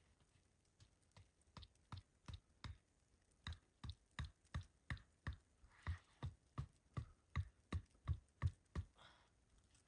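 A steady run of sharp knocks or taps, about three a second, growing louder toward the end and then stopping.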